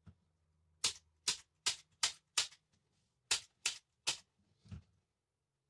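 Hand staple gun firing staples through upholstery fabric on a couch back: eight sharp snaps in two quick runs, five then three, followed by a softer thump.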